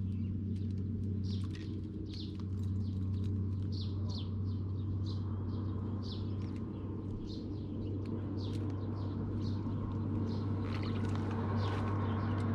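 Small birds chirping: many short, high chirps, several a second, over a steady low hum.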